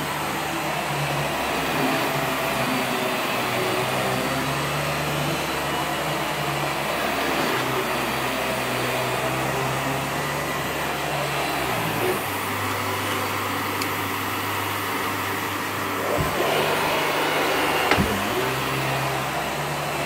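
Vax upright bagless vacuum cleaner running steadily as it is pushed over carpet. Its low hum drops slightly about twelve seconds in, and there are two brief knocks near the end.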